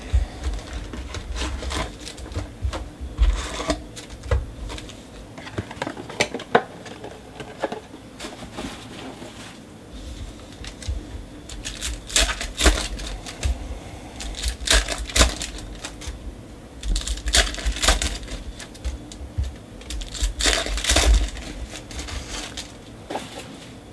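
Foil trading-card packs being torn open and their wrappers crinkled by hand, with light taps and rustles of cards and cardboard being handled. The crinkling comes in short, louder spells every couple of seconds in the second half.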